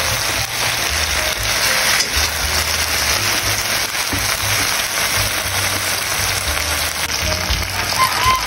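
Pieces of fried tilapia with onion and garlic sizzling steadily in hot oil in a nonstick wok, with a spatula moving among them. Background music with low bass notes plays underneath.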